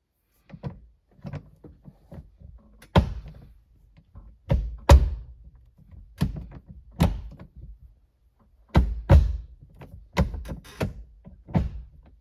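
Aftermarket chassis-mount shifter on a BMW E46 being moved through the gears, a string of sharp clunks and knocks as the lever and linkage hit each gate.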